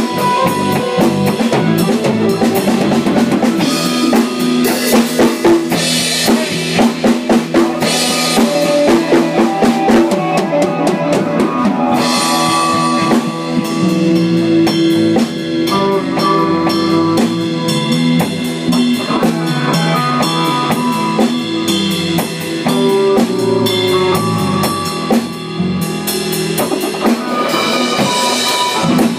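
A live band jamming: a drum kit with kick drum and snare hits driving a steady beat under guitar.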